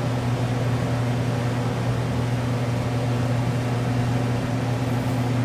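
Shop heater running: a steady electric hum with an even fan-like rush, unchanging throughout.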